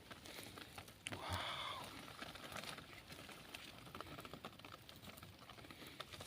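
Faint rustling and crackling with scattered small clicks, and a short louder call or exclamation about a second in.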